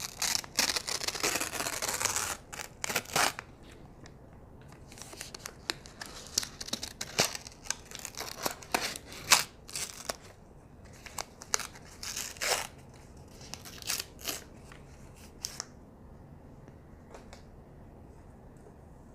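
Irregular sharp clicks with short rustling, tearing noises, densest at first and stopping about 16 seconds in.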